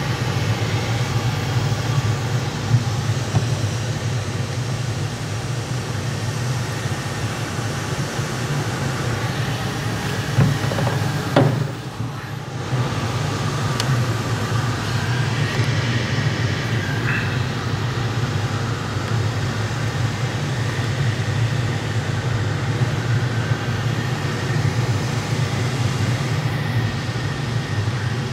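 Steady rush of airflow around the canopy and airframe of a Pilatus B4 all-metal glider in flight, with a brief drop in loudness about twelve seconds in.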